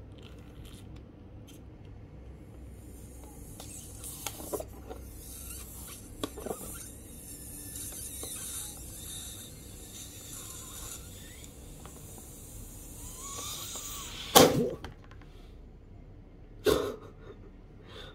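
Breath rushing into a latex balloon as it is blown up with effort, a long hissing stretch, then a sudden loud bang about fourteen seconds in as the balloon bursts. Two smaller sudden sounds follow.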